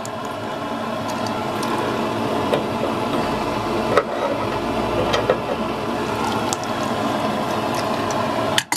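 Water splashing and sloshing in a bucket as a hand rummages through it to the stainless-steel pan at the bottom, with a few sharp clicks along the way; the sloshing stops abruptly near the end.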